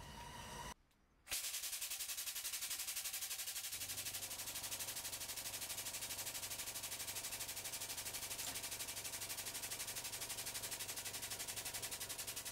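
Hydraulic press pump running as the ram descends, a rapid, very even pulsing with a steady low hum underneath. It starts abruptly about a second in, after a brief drop-out.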